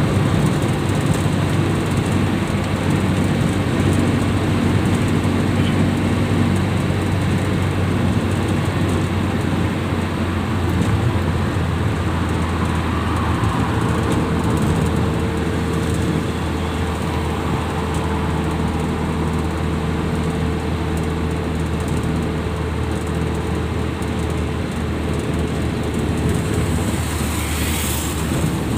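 Engine and road noise inside the cabin of a moving vehicle at highway speed: a steady low drone with tyre rumble, a faint steady whine through the middle, and a brief hiss near the end.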